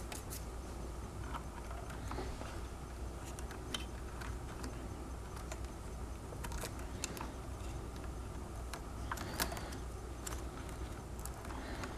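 Faint scattered clicks and light rustles of hands handling and bundling wires inside a balance-board scooter's open plastic and metal chassis, over a steady low hum.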